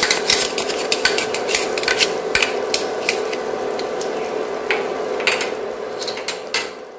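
Vegetables sizzling in a wok with a steady hiss, while a metal spoon scrapes and clicks against a bowl and the pan as tomato ketchup is spooned in. The sound fades away near the end.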